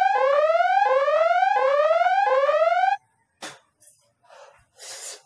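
Electronic whooping alarm tone: a rising note that drops back and rises again about every 0.7 s. It cuts off abruptly about three seconds in, and a few faint short breathy noises follow.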